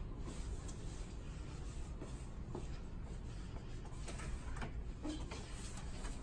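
Steady low room hum with faint rustling and a few light clicks; about four seconds in, a door handle clicks as a door is opened.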